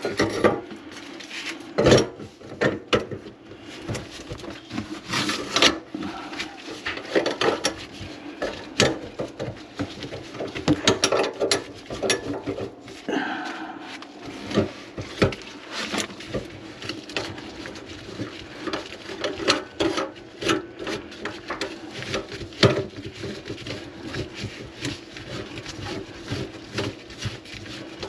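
Irregular clicks, knocks and rubbing of plumbing parts being handled and fitted under a kitchen sink, over a faint steady hum.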